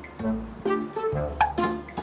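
Background music: a bouncy tune of short pitched notes over a bass line, with sharp percussive hits about twice a second.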